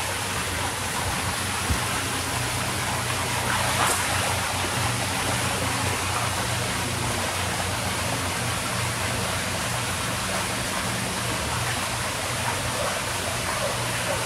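Steady rush of running water in a koi pond, with a faint low hum underneath.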